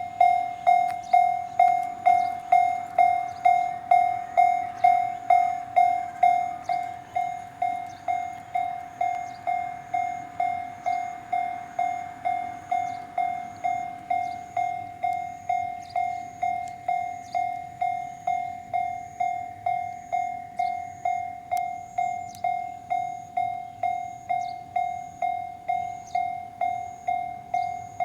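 Japanese level-crossing alarm bell ringing: one electronic tone struck evenly about twice a second without pause. Its loudness drops a step about six seconds in.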